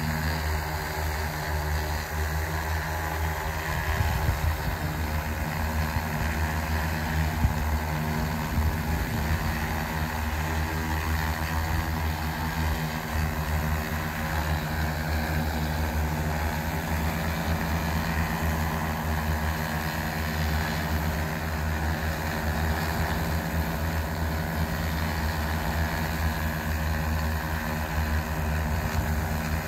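Large X1400 industrial multirotor drone hovering, its propellers giving a steady drone made of several constant held tones over a deep rumble.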